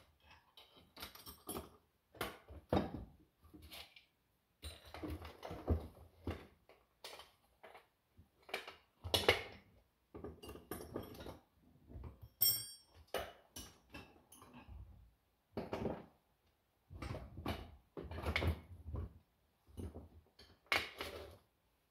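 Metal hand tools clinking and clanking against metal as bolts are worked on a tractor: irregular knocks and rattles with a few short ringing clinks.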